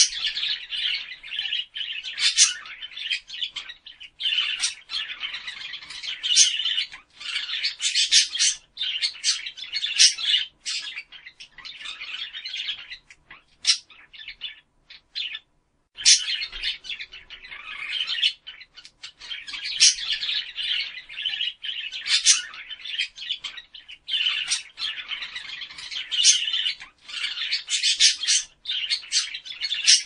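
Budgerigars chattering continuously in a raspy stream with frequent sharp squawks, pausing briefly about halfway through.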